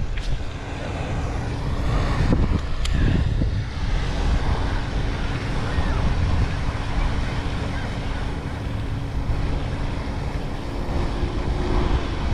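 Strong wind buffeting the microphone in a dense low rumble, with a faint steady hum through the middle and later part and a single sharp click about three seconds in.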